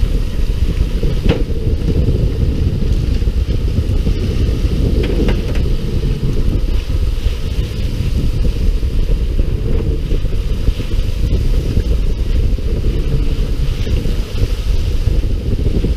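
Wind buffeting the microphone on a fishing boat at sea, a loud steady low rumble, with a sharp knock about a second in and a few more around five seconds in.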